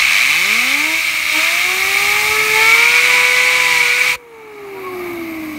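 A compressed-air blow gun hisses loudly at a hand-held fidget spinner and drives it up to speed, its whir rising steadily in pitch. The air cuts off suddenly about four seconds in, and the spinner's bearing keeps whirring, slowly dropping in pitch as it coasts.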